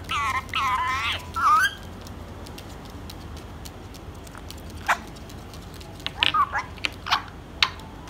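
Indian ringneck parakeet giving wavering, speech-like calls for about the first second and a half, then a few sharp taps and short calls in the second half.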